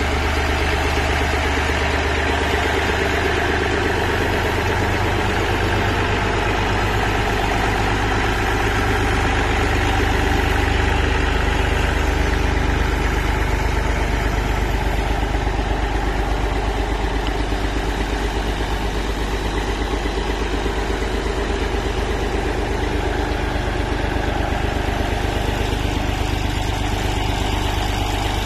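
1966 Massey Ferguson 135 tractor engine idling steadily, with an even, rapid firing beat.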